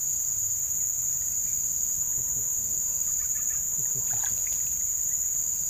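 Steady high-pitched insect chorus, an unbroken shrill drone.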